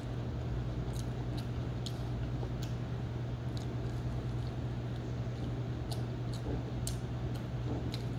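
A person chewing pizza up close: irregular small wet mouth clicks, about one or two a second, over a steady low hum.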